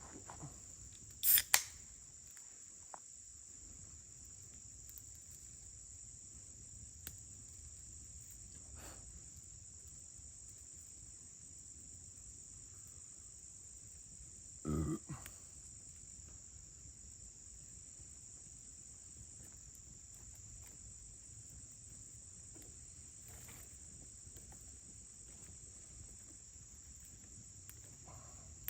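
Steady chorus of crickets or similar insects, an even high-pitched trill that never breaks. A sharp knock about a second in and a duller thump about halfway through stand out above it.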